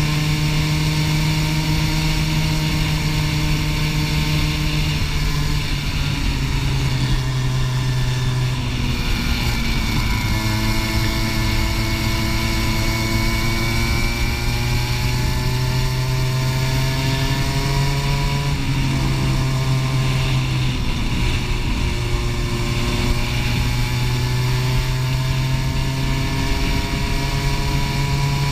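Racing go-kart engine at full race pace, heard from on board the kart. The engine note climbs steadily as it accelerates down the straights and drops sharply when the driver lifts off for corners, about six and nineteen seconds in.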